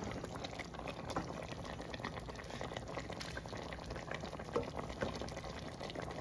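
Pot of chicken broth boiling on the stove: a steady, dense crackle of bubbles.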